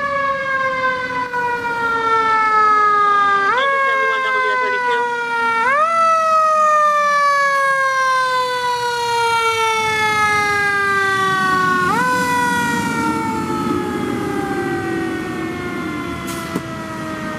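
Fire engine siren wailing. Four times its pitch climbs quickly and then falls slowly, the longest fall lasting about six seconds. A low engine rumble grows in the second half as the truck drives past.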